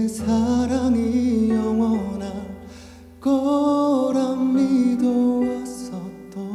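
Male vocalist singing a slow Korean ballad into a handheld microphone over soft backing accompaniment. Two sung phrases, with a short breath between them about three seconds in.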